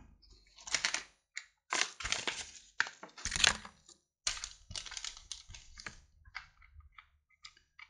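Plastic and cardboard retail packaging of a microSD card crinkling and rustling in short irregular bursts as it is handled and set down, with a few faint small clicks near the end.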